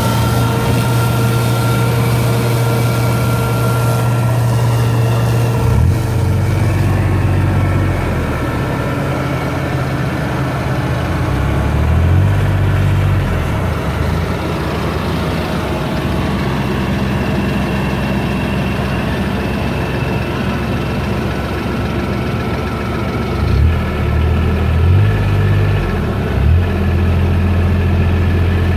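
Farm tractor's diesel engine running steadily under load as it powers a PTO-driven flail mower cutting brush, its low engine note shifting several times.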